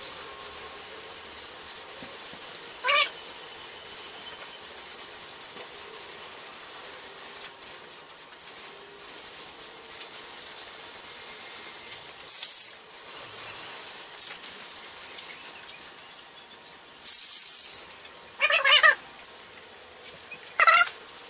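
Aerosol spray-paint can hissing as white paint is sprayed onto a truck's fender: a steady spray for the first several seconds, then short bursts. Near the end come two short, high-pitched, wavering cries, louder than the spray.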